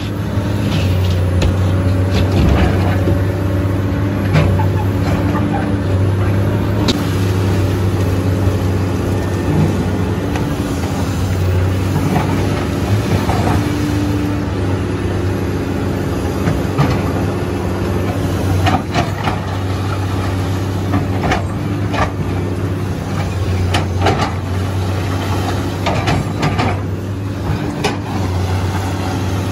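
Komatsu PC210 hydraulic excavator's diesel engine running steadily, heard from the operator's cab as the bucket digs stone and earth, with scattered knocks and clatters of rock in the later part.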